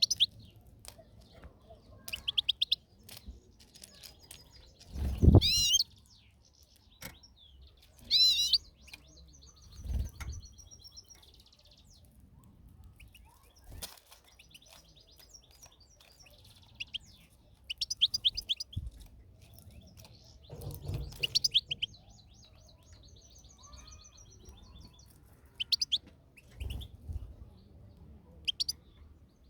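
European goldfinch calling in short twittering bursts of high, quick chirps, with a few dull thumps between them.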